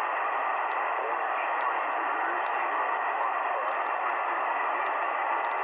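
Shortwave receiver tuned to a 40-metre single-sideband voice channel, giving steady static hiss with no one transmitting. Faint ticks of atmospheric noise sit on top of the hiss.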